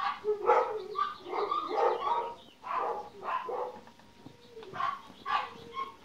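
A run of about a dozen short animal calls in quick, uneven succession, each a fraction of a second long.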